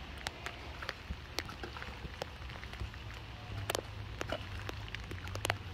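Metal hoe blade scraping and pushing wet mud and water along a shallow muddy channel, with irregular small clicks, scrapes and splashes.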